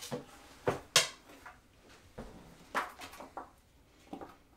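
A few light knocks and taps of jewelry display stands being handled, set down and picked up, the sharpest about a second in.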